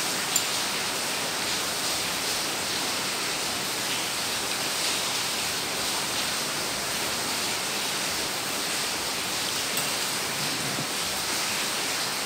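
Steady, even hiss of background noise, with a light click of chopsticks on a porcelain bowl about half a second in and again near ten seconds.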